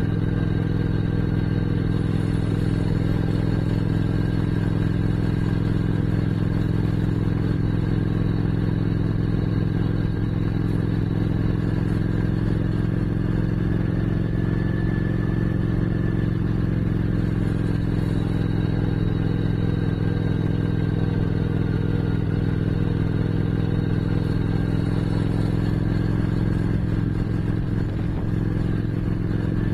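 Motorcycle engine running at a steady cruising speed, heard through cameras mounted on the bike, with wind and road noise over it. The engine note holds an even pitch and wavers slightly near the end.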